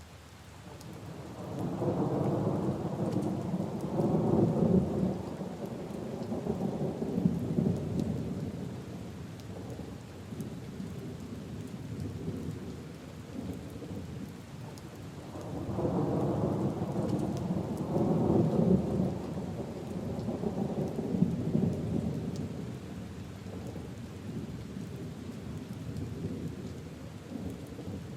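Steady rain falling on puddles and leaves, with two long rolls of thunder: the first builds about a second in and dies away by the middle, the second starts about halfway through and fades out near the end.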